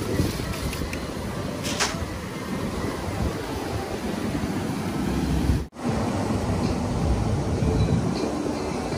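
Ocean surf washing onto the beach, with wind rumbling on the microphone. The sound cuts out for a moment about two thirds of the way in.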